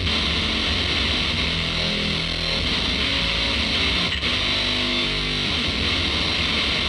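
Shoegaze rock music: a dense, steady wash of distorted electric guitar chords.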